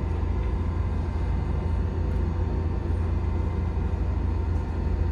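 Steady low rumble and faint hum inside a JR 103 series electric train car, with no traction-motor whine: the train is standing at a station for a crossing, its onboard equipment running.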